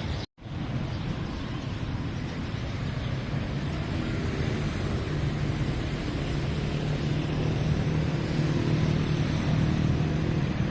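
Street traffic noise: a steady wash of passing cars with engines running, the low hum growing louder in the second half. The audio cuts out for an instant just after the start.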